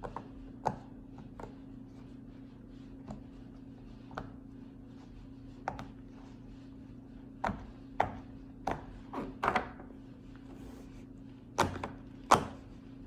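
A rainbow silicone pop-it fidget toy being pressed bubble by bubble, giving a series of separate sharp pops. The pops are irregularly spaced, sparse at first and coming closer together in the second half.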